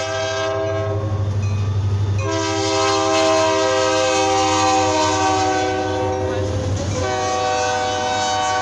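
Freight diesel locomotive's air horn sounding a chord for the grade crossing. One blast ends about a second in, a long blast runs from about two to seven seconds, and another begins near the end, all over the locomotive's steady low rumble.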